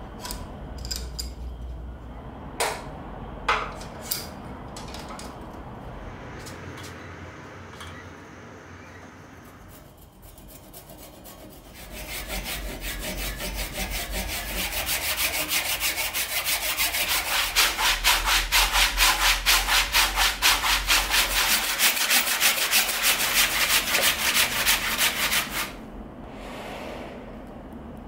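Bar clamps and metal tools clicking and knocking against a thick wood block as it is clamped up; then, about twelve seconds in, a hand saw cutting through the block in fast, even strokes, which stop a couple of seconds before the end.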